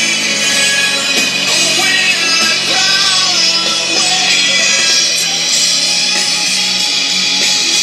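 Rock music with guitar and a singing voice.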